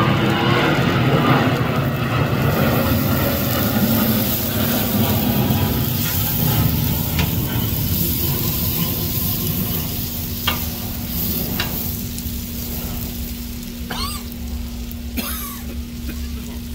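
Hash browns frying and sizzling on a Blackstone steel griddle top, with a metal spatula scraping and tapping the plate several times as it turns them. A passing airplane rumbles at first and fades away.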